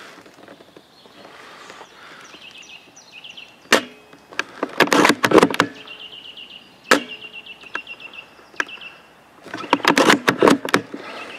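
Crunching and rustling of dry leaf litter and twigs in two bursts, with a few single sharp snaps. Between them, birds chirp in short high repeated notes.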